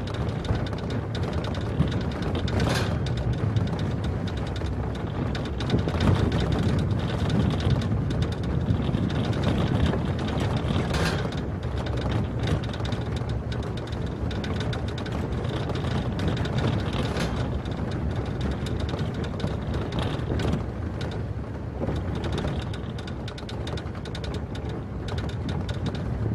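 A vehicle driving along a dirt gravel road, heard from its roof: a steady low rumble of engine and tyres, with a few sharp knocks and rattles from bumps in the road.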